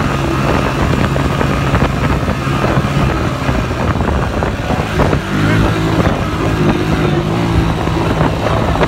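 Small motorcycle engine running under way on a sandy track. The engine note dips briefly about five seconds in, then climbs again.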